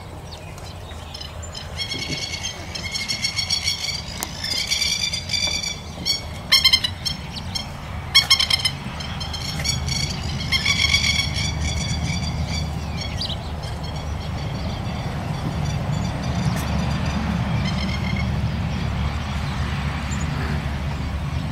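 High-pitched, pulsed animal calls repeated over roughly the first ten seconds, with two sharp knocks in the middle, over a steady low rumble that grows louder in the second half.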